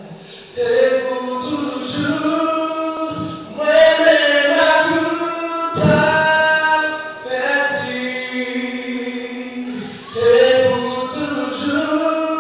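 A man singing into a microphone, in long held phrases that bend in pitch, with short breaths between them.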